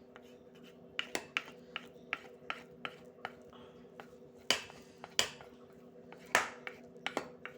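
Kitchen utensils clicking and knocking against a cooking vessel: about fifteen sharp taps at an irregular pace, a few of them ringing briefly. A steady low hum runs underneath.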